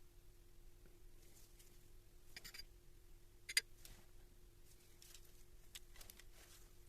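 Quiet room with a faint steady hum, a few scattered small clicks and rustles, and one sharp click about halfway through.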